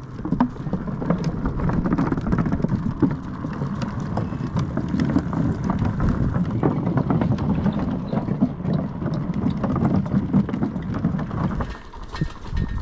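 Bicycle rolling over a wooden plank boardwalk: a steady rattling rumble from the tyres and frame, with many small clicks and knocks. It eases off near the end.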